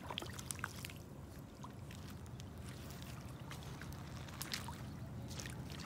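Shallow lake water stirred by a wading raccoon and a barefoot person: soft trickling and scattered small splashes, with more of them near the end.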